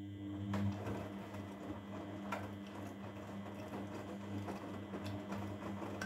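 Grundig front-loading washing machine's motor turning the drum through the wash, a steady hum with three light clicks, about half a second, two and a half seconds and five seconds in.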